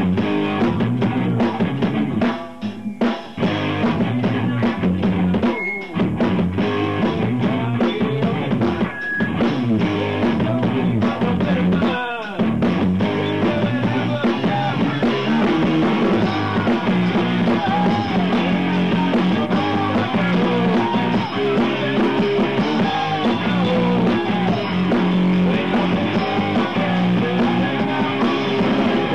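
Rock band playing live in a practice room: drum kit with electric guitars, loud and continuous, breaking off briefly a few times in the first twelve seconds, with a singer's voice in the mix.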